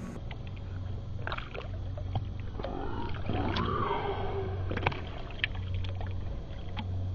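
Water splashing and lapping close by as a caught spotted seatrout is released by hand at the surface, with scattered light ticks and a steady low hum underneath.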